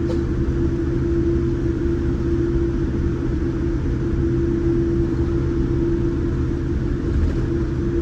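Steady cabin noise inside a Boeing 787 Dreamliner in flight: a deep, even rumble of the engines and airflow with a steady hum running through it.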